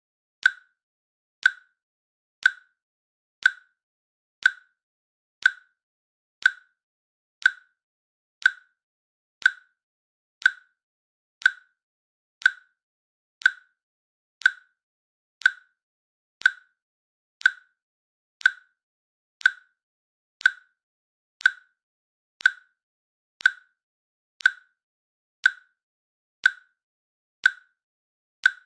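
A timer's click sound, one short sharp click exactly every second, marking the countdown seconds.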